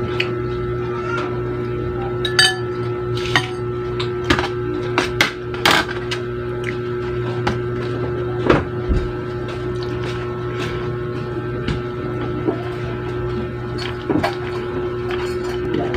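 Scattered clinks and knocks of dishes and utensils on a table during a meal, over a steady hum.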